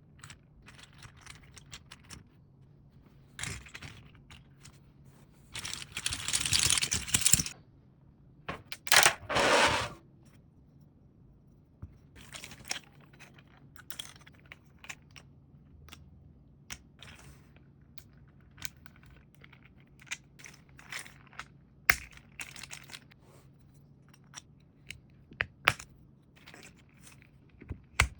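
A 3D-printed plastic flexi articulated fox figure being handled, its jointed segments clicking and rattling against each other. There are scattered sharp clicks throughout and two longer rattles in the first third.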